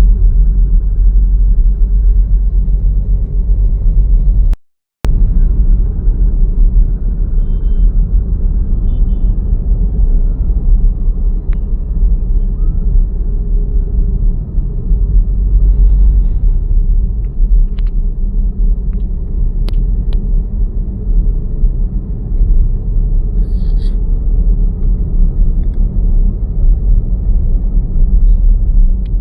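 Loud, steady low rumble with a few faint clicks over it; the sound cuts out completely for a moment about five seconds in.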